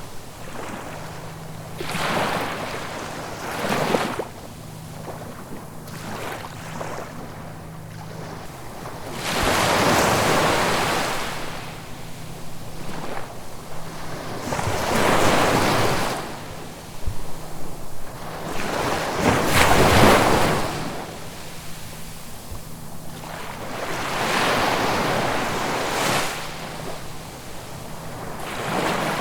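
Ocean waves breaking and washing on the shore, the surf swelling and falling back every few seconds, with the biggest breaks about ten and twenty seconds in.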